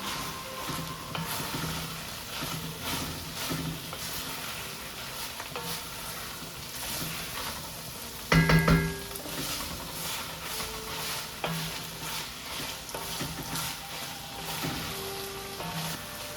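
Browned ground beef and pork sizzling in a pot while tomato paste is stirred in with a spoon, with repeated scraping strokes. About eight seconds in there is one loud clank of the utensil against the pot.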